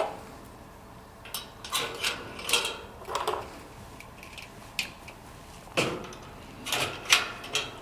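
Metal cart panels and fixing pins knocking and clattering in short, irregular bursts as they are handled and fitted together.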